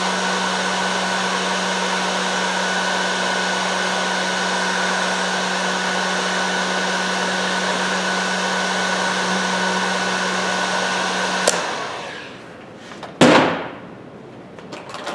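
Heat gun blowing steadily with a constant hum while heating heat-shrink tubing, switched off about eleven and a half seconds in and quickly winding down. A single sharp knock follows a couple of seconds later.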